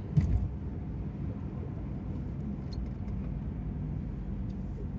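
Steady road and engine rumble heard from inside a car's cabin at highway speed, with one short low hiccup-burp from a passenger just after the start.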